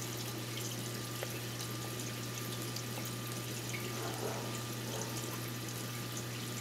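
Reef aquarium running: water trickling and splashing over a steady low pump hum, with a faint click about a second in.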